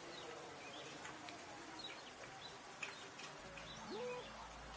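Quiet background with scattered short bird chirps.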